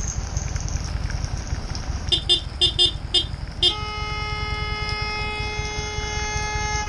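A vehicle horn gives five short toots about two seconds in, then one long, steady blast that lasts several seconds. Under it runs the motorcycle's steady low rumble.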